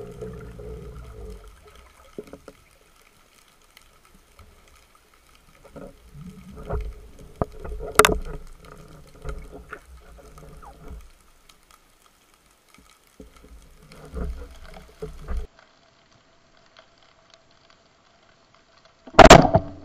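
Underwater sound on a spearfishing dive: low water noise that fades in the first second or so, scattered clicks and knocks from the diver's gear and speargun, and a sharp click about eight seconds in. Near the end comes one loud, sudden burst, the loudest sound here.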